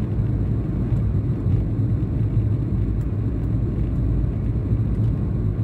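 Steady low road and engine rumble of a car driving on a highway, heard from inside the cabin.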